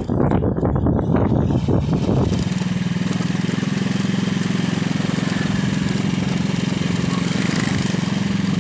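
Small motorcycle engine running during a ride. For about the first two seconds the sound is rough and noisy, then the engine settles into a steady, even pitch.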